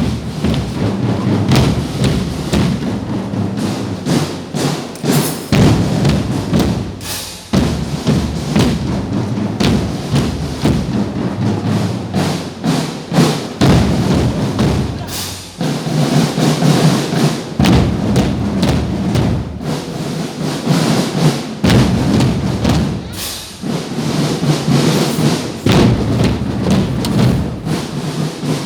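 Music from a marching drum band playing, with heavy, closely spaced drum beats.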